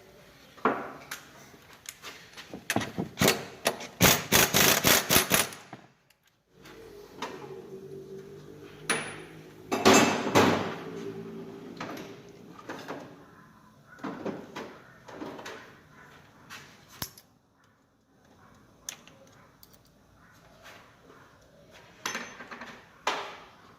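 Metal tool work on a manual gearbox while the fifth-gear pair is taken off: scattered knocks and clanks, with a loud fast run of rattling strikes about three to five seconds in and another loud knock about ten seconds in.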